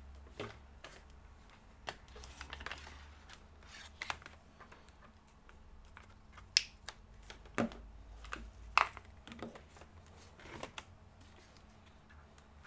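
Irregular clicks and light knocks of hands handling a laptop charger and its cable on a workbench, with two sharper snaps partway through.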